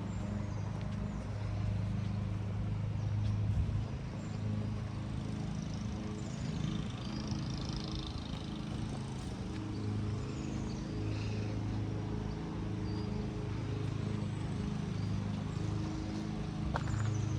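A steady low hum made of several pitches that shift every second or two, with faint high chirps, like small birds, about six to eight seconds in.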